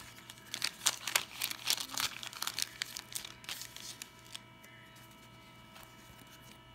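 Wax-paper wrapper of an old 1982 Donruss baseball card pack crinkling and tearing as it is pulled open. A quick run of crackles fills the first three seconds or so, then only a few light ticks as the cards are handled.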